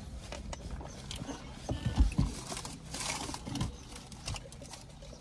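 Close-up eating sounds: chewing with small wet clicks and the rustle of a sandwich paper wrapper, with a couple of low thumps about two seconds in.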